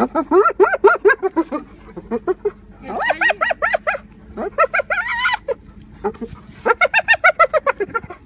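Hyena 'laughing' call: quick runs of short, high-pitched rising-and-falling yelps, about eight a second, in several bouts with brief breaks between them.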